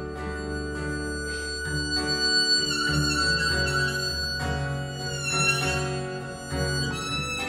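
Harmonica playing a solo of held notes in an instrumental break, over a steady backing of sustained chords.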